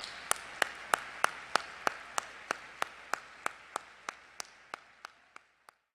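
Audience applauding, with one set of hands clapping loudly in an even beat of about three claps a second over the crowd. The applause fades and stops shortly before the end.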